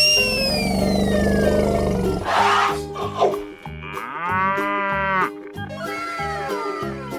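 Animal calls laid over upbeat background music with a steady beat: a long low call with a falling glide in the first two seconds, then a short noisy burst and several rising-then-falling pitched calls.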